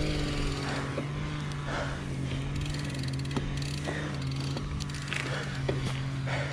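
An engine running steadily at a low, even pitch, with a few light clicks over it.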